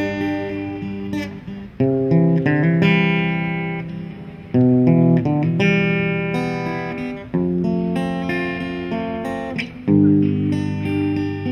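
Acoustic guitar played solo, strumming chords about every two and a half to three seconds, each chord left to ring and fade, with single plucked notes in between.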